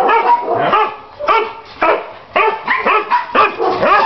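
Kennelled dogs barking and yipping, short calls of different pitches following one another several times a second.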